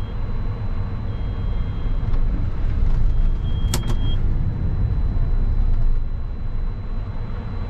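Claas Jaguar 960 forage harvester running with its chopper drives engaging, heard from inside the cab: a steady low rumble that swells in the middle seconds, with three long high beeps and a couple of sharp clicks. The run-up sounds rough, which the operator puts down to the trommel or the accelerator.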